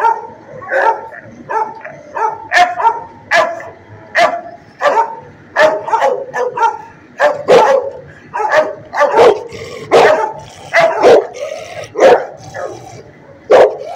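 Dog barking over and over, loud short barks coming one or two a second.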